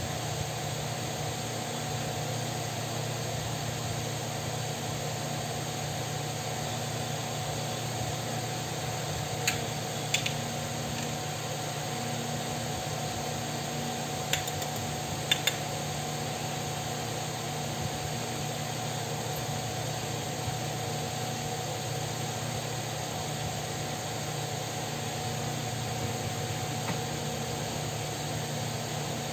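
Steady whirring hum of a running electric fan, with a few light clicks about ten and fifteen seconds in.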